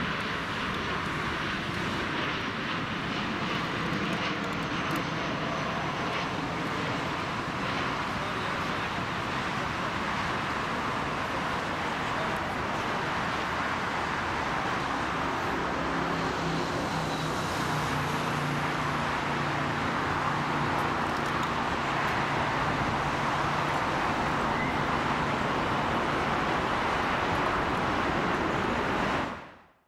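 Boeing 737-800's CFM56-7B jet engines, a steady rushing sound as it comes in to land and touches down; a low hum joins in about halfway through as the airliner rolls out on the runway.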